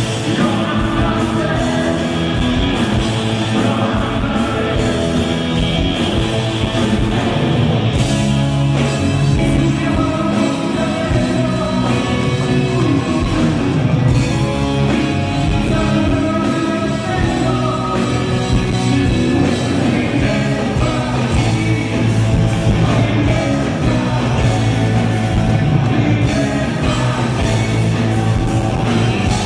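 Live rock band playing with electric guitars and drums, and a man singing.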